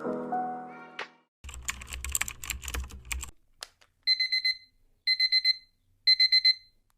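Electronic alarm beeping: three bursts of rapid high beeps, each burst about half a second long and the bursts about a second apart. Before it comes a short stretch of rustling and clattering.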